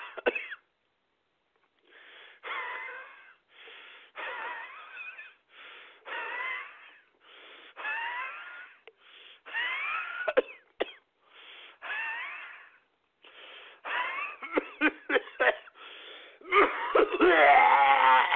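A man wheezing and gasping for breath in a series of drawn, whistling breaths about one every second and a half, struggling to get his breath back after complaining of chest pain. Near the end the breaths break into short coughs and then a louder, rougher strained stretch.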